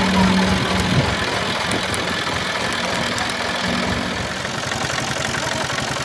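An engine idling steadily, with an even low pulsing rumble.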